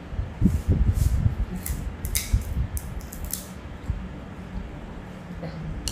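Metal spoon clinking and scraping against a small stainless-steel bowl as broth is spooned into it: a string of light clinks in the first half, over low dull knocks against the table.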